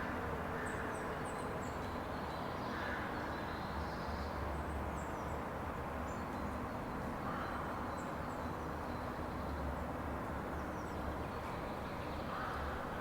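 Outdoor ambience: small birds chirping faintly and intermittently over a steady low rumble.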